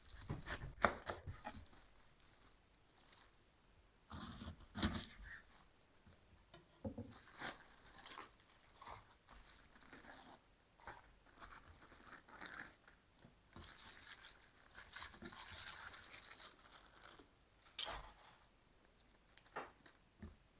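Irregular tearing and crinkling handling noises in short bursts with brief pauses, a few sharper clicks among them.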